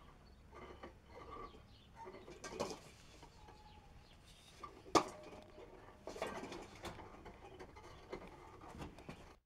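A few short bird-like calls over irregular light rustling, with one sharp knock about five seconds in.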